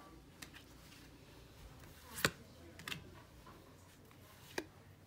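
Trading cards being handled and flipped through: a few scattered sharp clicks and snaps, the loudest a little over two seconds in.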